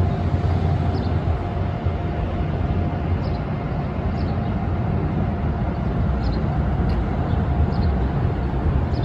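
Outdoor background rumble, steady and low, with faint short high chirps every second or so.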